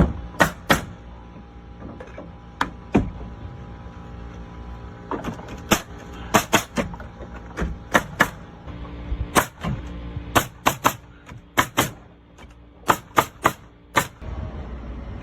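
Nailing on wood framing: a run of sharp impacts, irregularly spaced and often in quick groups of two or three, over a steady low hum.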